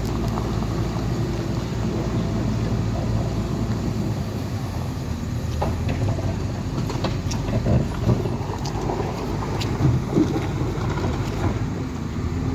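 Heavy vehicle or machine engine running steadily with a low hum, with several sharp knocks in the second half.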